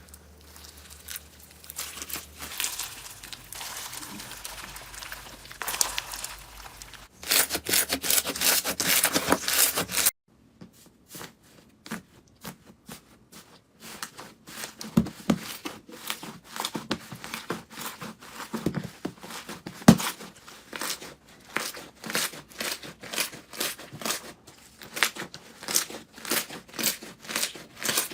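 Crinkling and tearing of handled material: a soft rustle, then a louder dense stretch about seven seconds in that cuts off suddenly, followed by a long run of separate sharp crackles.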